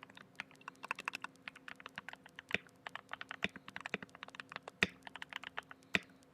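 Typing on a CIY Tester 68 mechanical keyboard with lubed Gateron Brown tactile switches in a foam-dampened build. It is a fast, uneven run of keystrokes, with a few heavier strokes standing out about two and a half, three and a half, five and six seconds in.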